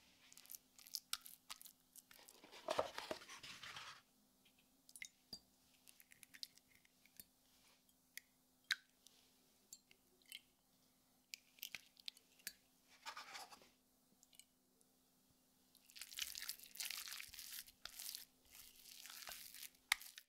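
Quiet kitchen handling: a silicone spatula scraping against a glass mixing bowl, and eggs being cracked and separated, with scattered small clicks and taps of shell and glass. There are two longer spells of scraping, one early and one near the end.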